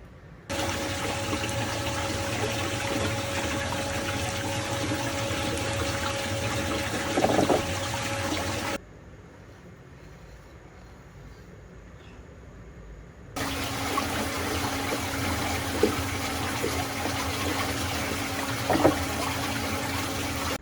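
Water rushing down a sink drain in a whirlpool vortex, a steady noisy rush with a faint steady hum. It comes in two stretches that start and stop abruptly, each with a brief louder surge near its end.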